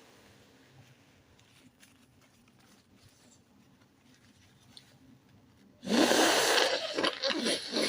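Near silence for about six seconds, then a person's stifled sneezing starts abruptly. A long noisy breath comes first, followed by a run of short, hard nasal bursts.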